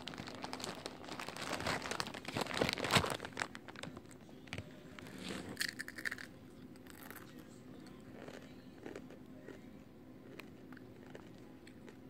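Plastic-foil Doritos Dinamita chip bag crinkling and being torn open for the first four seconds or so. After that it goes quieter, with a few scattered crunches as the rolled tortilla chips are eaten.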